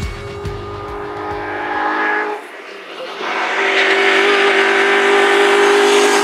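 Rock music fades out over the first two seconds. Then a Citroën C2 VTS rally car's 1.6-litre four-cylinder engine is heard coming up the stage at high revs, getting louder as it nears and holding a steady pitch.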